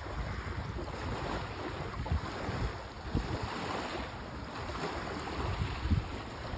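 Small sea waves washing in and lapping at the shore, with wind buffeting the microphone in a few stronger gusts.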